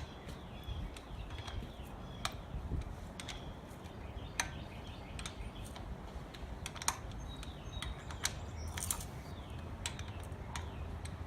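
Scattered sharp metal clicks and ticks, irregular and about one or two a second, as the LS1 flywheel bolts are worked loose and turned out with hand tools.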